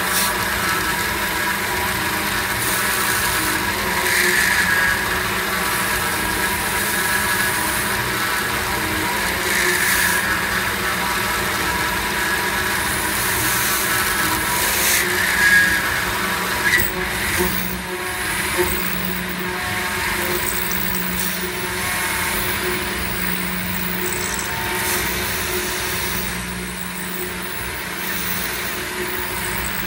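CNC milling machine cutting a pocket in a metal block with an end mill under flood coolant: the spindle and cut make a steady whine, swelling louder every five or six seconds as the cutter works around, with a few sharp ticks of chips near the middle.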